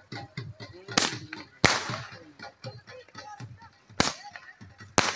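Four sharp firework bangs: two in the first two seconds, the second trailing off in a short echo, then two more a second apart near the end, over the chatter of a crowd.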